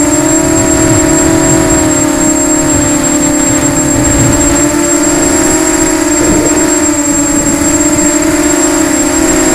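Eachine EC250 racing quadcopter's brushless motors and propellers running with a steady whine that wavers slightly in pitch with throttle, heard from the onboard camera, with a thin high steady tone above it.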